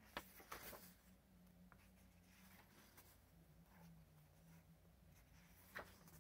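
Faint brushing and rustling of sketchbook paper pages turned by hand: a few quick strokes near the start and one more near the end. A faint steady low hum runs beneath.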